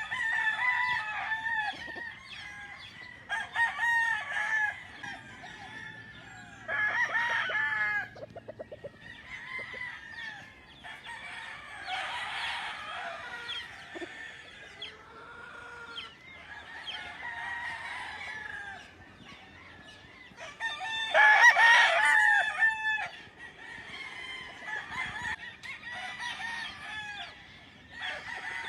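Roosters crowing one after another, the crows overlapping, with chickens clucking between them; the loudest crow comes about three quarters of the way through.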